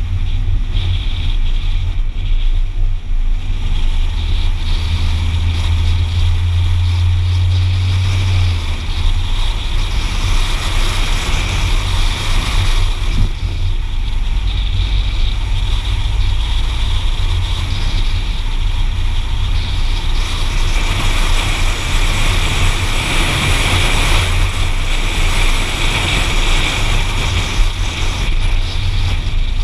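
A car driving along a narrow road: steady engine, tyre and wind noise, with a strong low engine drone that drops away about eight seconds in.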